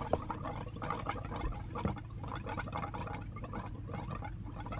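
Thin stream of water pattering and spitting from a boat's galley faucet into a stainless steel sink in irregular little spatters, over the low steady hum of the freshwater pump. The water heater is still filling with antifreeze and has air in it, so the line runs unevenly.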